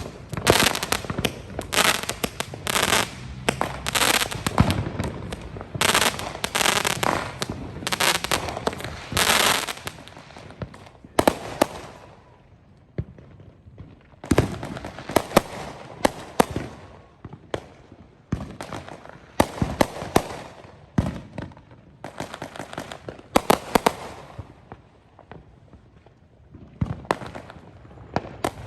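Backyard consumer fireworks and firecrackers going off in rapid clusters of sharp bangs and crackles. The clusters pause briefly about twelve seconds in and ease off again before a few more bangs near the end.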